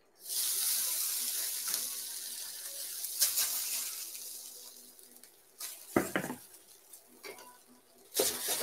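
Boiled Chinese noodles dropped into hot sesame oil in a wok sizzle at once, the hiss fading away over about five seconds as they start to dry-fry. A few clicks of a utensil on the wok follow, and stirring begins near the end.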